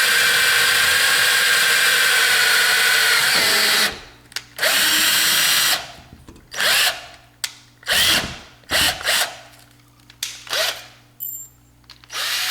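Power drill with a 1/8 inch bit running steadily with a constant whine as it bores the pilot hole for the lock's bottom screw, stopping about four seconds in. It is followed by a series of short bursts of the drill, each one spinning up and cutting off.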